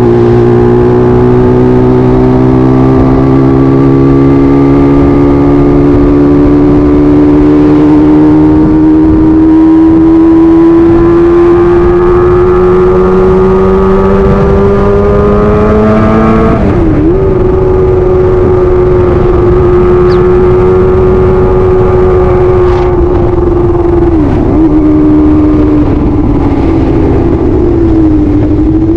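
Kawasaki ZX25R's 250 cc inline-four engine running at high revs under way, its pitch climbing slowly for about sixteen seconds, then dropping suddenly, then holding steady with two brief dips near the end.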